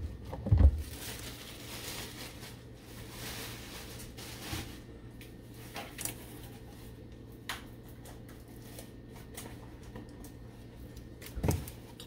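Unboxing handling noises on a kitchen counter: two thumps in the first second as things are set down, a few light clicks and rustles of plastic packaging, and another thump near the end, over a low steady hum.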